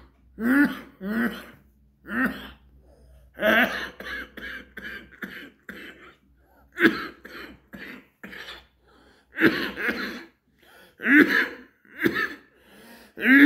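A man coughing and clearing his throat over and over in short voiced bursts, right after drawing on a cigarette.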